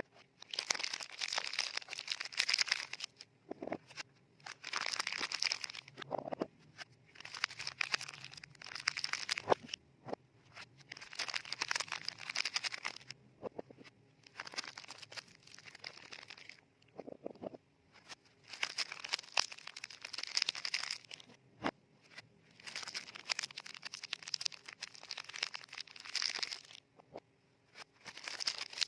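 Frosted paper soap wrappers crinkling and rustling as they are folded around soap bars, in a series of bursts a couple of seconds long with short pauses between them.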